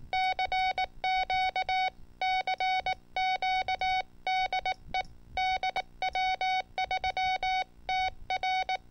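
Morse code sent as a single steady beep tone, keyed on and off in quick short and long elements grouped into letters with brief gaps between them.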